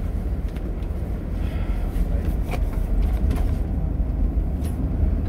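Steady low rumble of engine and road noise heard from inside the cab of a moving vehicle, with a few faint light knocks.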